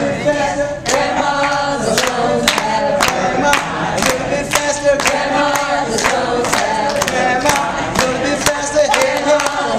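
A group singing a chanted stone-passing game song together, with sharp taps or claps keeping a steady beat of about two a second.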